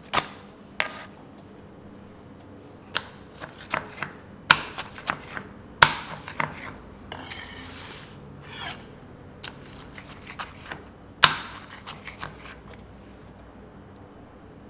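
Kitchen work at a food stall: irregular sharp clanks and knocks of metal utensils on pans and trays, some ringing briefly, with a longer scrape about seven seconds in.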